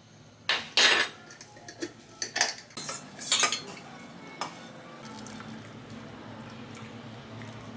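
Metal spoon clinking and scraping against a glass jar and a small stainless-steel bowl while scooping rice flour and stirring it into a slurry: a run of sharp clinks over the first three or four seconds. A steady low hiss sets in about five seconds in.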